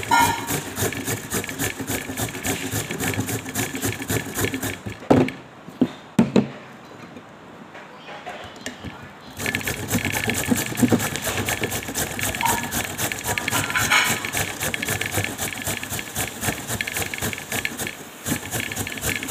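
A carrot being grated on a flat stainless-steel hand grater: a fast, even rasping, several strokes a second. About five seconds in, the grating stops for roughly four seconds after a few sharp knocks, then carries on.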